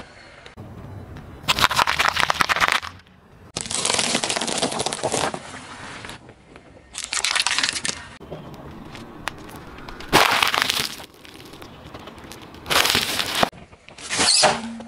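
A car tyre rolls over small objects on asphalt and crushes them one after another, in about six separate bursts with short quieter gaps between. Among the objects is a foil-wrapped chocolate bar.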